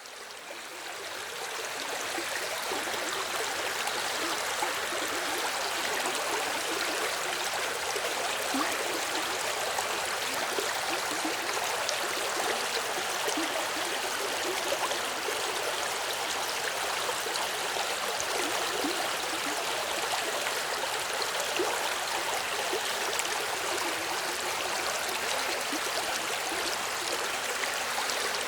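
A small river or stream flowing with a steady rushing and babbling of water over stones. It fades in over the first two seconds or so.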